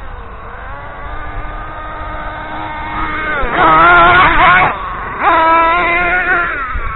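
Nitro RC car engine at a high buzzing note, revving hard twice with its pitch climbing. There is a brief lift off the throttle between the two bursts, about four and a half seconds in, and lighter running before them.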